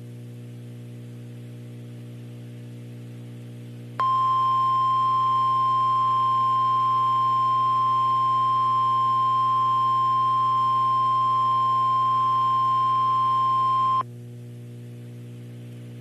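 NOAA Weather Radio warning alarm tone: one steady, single-pitched tone near 1 kHz held for about ten seconds, signalling that a warning message follows. A low steady hum sits under it and is heard alone for a few seconds before and after the tone.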